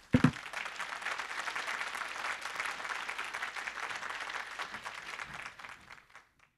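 Audience applauding, dense steady clapping that fades out near the end. A brief low thump comes right at the start.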